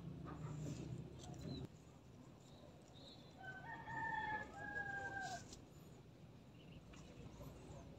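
A rooster crowing once, faint: a drawn-out crow starting about three and a half seconds in and lasting about two seconds.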